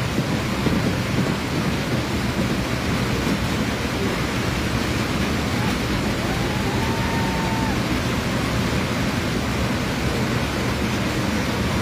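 Fireworks display: a continuous rumble of shell bursts and crackle, dense and steady throughout, with a faint whistle about six seconds in.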